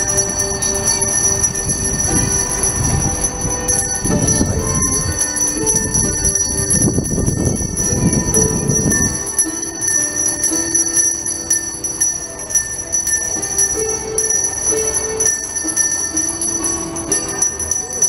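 Small brass hand bells ringing steadily, with a hammered dulcimer playing a melody. A low rushing noise runs under them for about the first half, then drops away.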